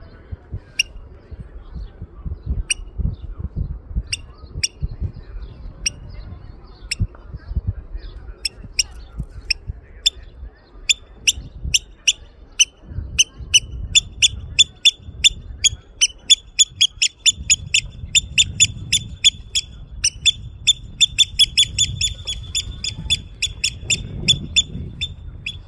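Eurasian oystercatcher giving sharp, high alarm calls, spaced about a second apart at first, then speeding up into a rapid run from about halfway through. It is calling at an intruder in an attempt to lure them away.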